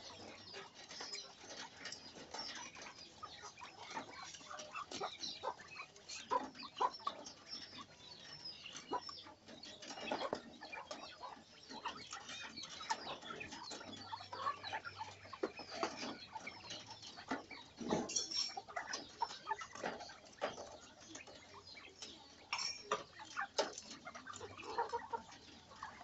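Caged laying quail giving short, soft clucking and chirping calls, mixed with many small clicks and taps.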